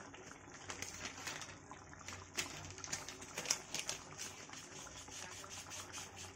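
Onion and ginger-garlic masala bubbling and sizzling in oil in a kadai, with frequent small pops and spits, a few sharper ones about two and a half and three and a half seconds in.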